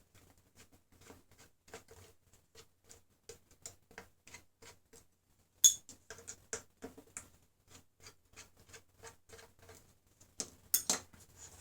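Small tool clicks from work on an old hard drive's sealed cover, most likely a screwdriver backing out the cover screws: a steady run of light clicks, about two or three a second, with a short pause and one louder click about halfway through.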